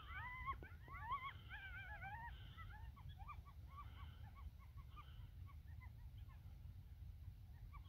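A pack of coyotes yipping and howling together, many wavering high calls overlapping at once. About three seconds in, the chorus thins to short, fainter yips.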